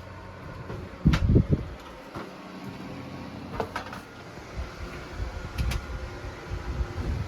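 A few knocks and clicks, the loudest a cluster of heavy low thumps about a second in, over a steady low hum.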